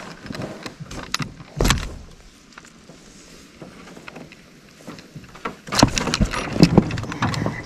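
Gear being handled in an aluminum jon boat: a knock at the start and a louder thump about a second and a half in, then a quiet stretch, then a quick run of clicks, knocks and rattles near the end as the landing net and a digital hanging scale are moved against the hull.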